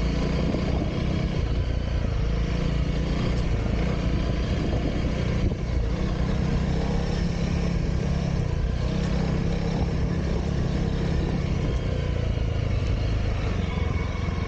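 Honda CRF300L's single-cylinder four-stroke engine running steadily, with a brief dip in level about five and a half seconds in.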